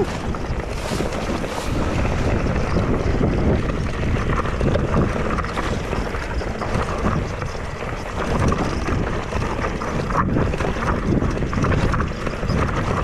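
Wind rushing over the microphone at speed, mixed with the rumble and rattle of an Ibis Mojo HD4 full-suspension mountain bike running down a rough dirt and gravel trail, with scattered sharp knocks from the bike hitting stones.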